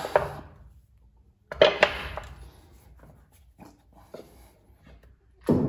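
Heavy four-jaw lathe chuck knocking against the Colchester lathe's camlock spindle nose as it is lifted and fitted. A loud metallic clunk with a short ring comes about one and a half seconds in, then a few light clicks, then another loud clunk near the end.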